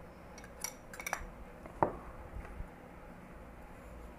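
Light clinks and taps of dishware against a plastic mixing bowl as chopped onion and herbs are tipped in. There are a few small clicks in the first second and a half and a sharper one a little under two seconds in.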